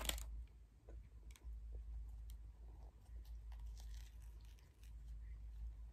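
Quiet eating sounds close to the microphone: a short crackle at the very start, then faint chewing with scattered small clicks and rustles, over a low steady hum.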